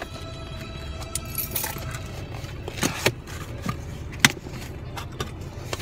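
A small cardboard shipping box being opened by hand: the flaps rustle and scrape, with scattered sharp crackles and clicks, the loudest a little over four seconds in. A low steady rumble runs underneath.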